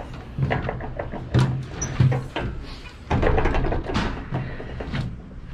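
Storage bins on the roof of a fire rescue truck being opened: a series of clunks, latch clicks and rattles, with a few heavier thuds.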